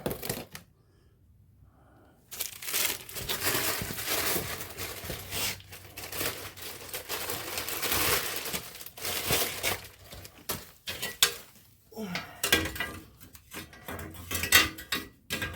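Rustling and crinkling of packaging or wrapping, then a run of light metallic clinks and knocks as automotive parts are handled and set in place.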